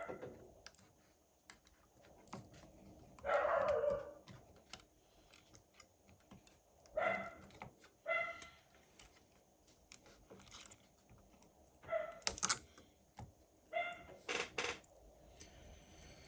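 Scattered light clicks and taps of small tools being handled on a repair bench, with a few short, high whimpers from a dog in between.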